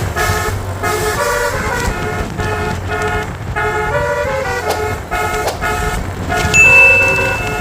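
A bus's basuri (telolet) musical air horn playing a fast melody of short, changing notes, with a low engine rumble beneath. A shrill high steady tone joins near the end and is the loudest sound.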